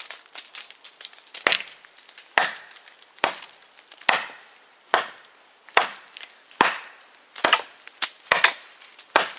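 Heavy TOPS Tom Brown Tracker knife chopping into a small dead, dry, hard standing tree: about ten strikes at a steady pace, a little under a second apart, biting like hatchet blows.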